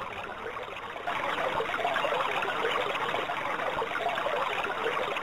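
Steady rushing of flowing water, like a stream, growing louder about a second in and then running on evenly.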